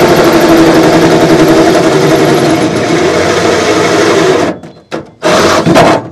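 Power drill boring a hole through the sheet metal, running steadily, then stopping about four and a half seconds in. Two short bursts follow as the hole is finished.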